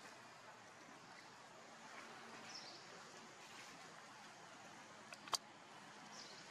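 Near silence: faint outdoor background noise, with one sharp click about five seconds in and a couple of faint, short high chirps.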